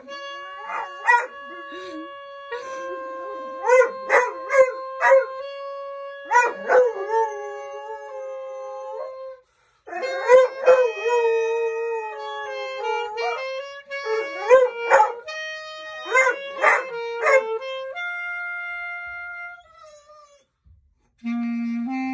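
A clarinet plays held notes while a German shorthaired pointer howls along with it, the howls wavering in pitch with short, loud yelping peaks. Both stop briefly about ten seconds in.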